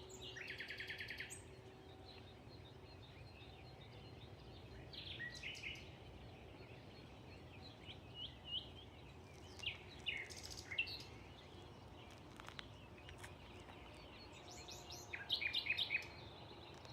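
Common nightingale singing in short, separate phrases a few seconds apart, heard faintly. The first phrase is a rapid trill of repeated notes; the later ones are sharp whistled and chirping notes.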